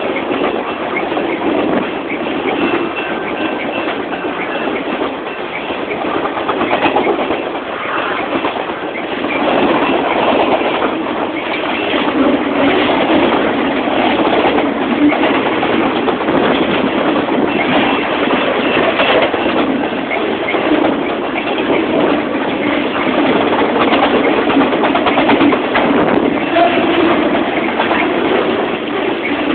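Cars of a long circus train rolling past at close range: a steady rumble and rattle of steel wheels on the rails, getting a little louder about twelve seconds in.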